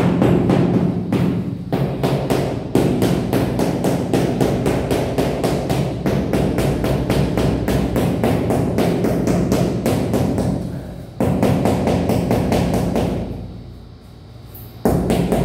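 Rubber mallet tapping rapidly on a large 80 × 80 cm ceramic floor tile to bed it level in the mortar: dull taps, several a second, with a short break just after eleven seconds and a longer pause near the end.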